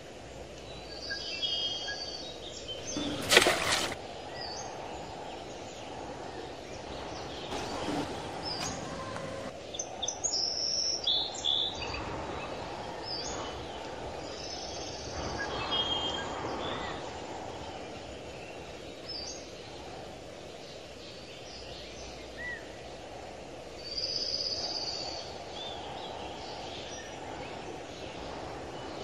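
Outdoor ambience: a steady low background noise with short bird chirps and tweets scattered throughout, and a brief loud noise about three seconds in.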